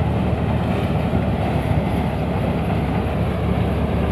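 Motorised paddy thresher running steadily while threshing rice: a loud, even mechanical drone from the machine as it strips grain from the straw and blows the straw out of its chute.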